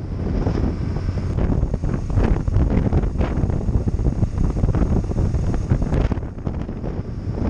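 Wind buffeting the microphone of a camera on a moving BMW R1200GS motorcycle, in uneven gusts that ease slightly about six seconds in.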